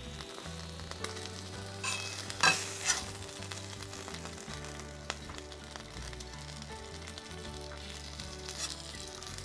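Smashed beef patties sizzling in butter on a steel flat-top griddle. A few short spatula scrapes on the steel come about two seconds in, as the patties are lifted and flipped onto the buns.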